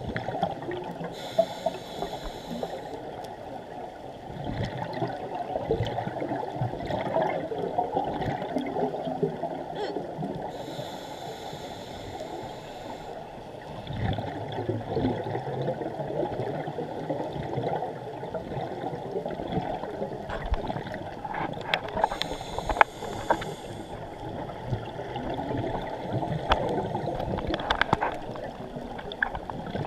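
Scuba regulator breathing heard underwater: three hissing inhalations about ten seconds apart, with bubbling, gurgling exhalations between them and a few small clicks.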